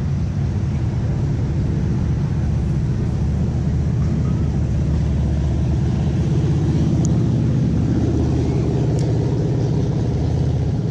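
A steady low rumbling noise, with two faint clicks about seven and nine seconds in.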